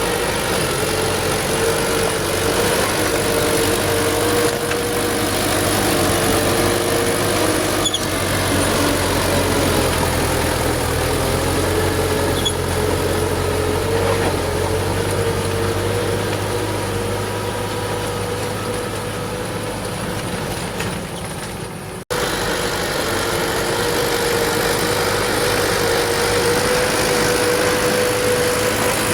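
Diesel engine of an old Furukawa bulldozer running steadily, its pitch wavering up and down slightly as it works. The sound cuts out for an instant about three-quarters of the way through.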